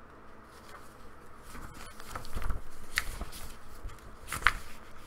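Paper rustling as a handmade paper booklet is handled and its pages turned, with two sharp paper snaps in the second half and a few soft knocks.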